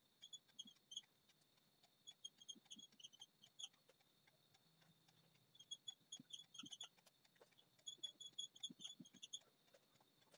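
Faint squeaking of a dry-erase marker on a whiteboard: four runs of quick, short, high squeaks, one run for each line of writing.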